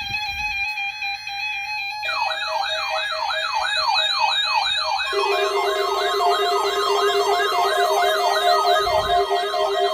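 Electronic siren yelping, its pitch sweeping rapidly up and down about two or three times a second, starting about two seconds in after a couple of seconds of steady tones. About five seconds in, steady tones join the sweeping siren and the sound gets louder.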